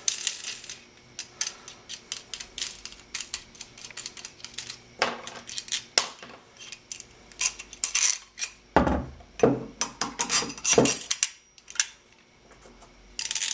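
Steel bolts, washers and perforated square steel tubing clinking and rattling as a bolt is handled, pulled out and turned around by hand: many small irregular metallic clicks and taps.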